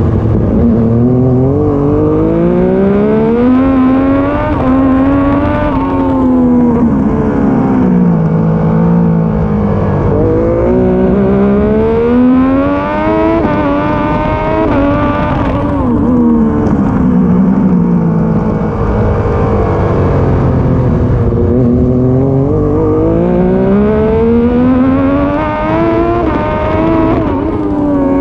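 Triumph Daytona 675 race bike's inline three-cylinder engine at racing pace. The engine note climbs under hard acceleration and drops back under braking about three times.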